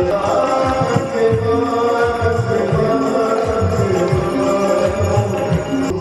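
Hindu devotional chanting and singing with drums beating steadily underneath.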